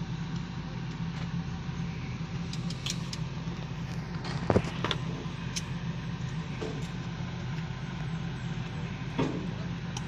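A steady low engine drone, with a few sharp knocks and clicks over it, the loudest about four and a half seconds in.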